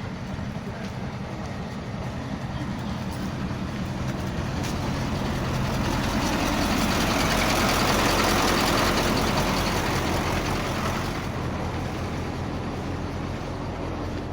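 A heavy vehicle's engine running. The sound swells to its loudest about eight seconds in, then eases off again, as the vehicle passes close by.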